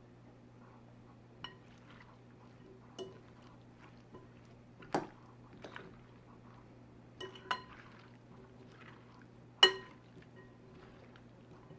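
Kitchen utensils and dishes clinking and tapping, about seven separate strikes, the loudest about two-thirds of the way through, over a steady low hum.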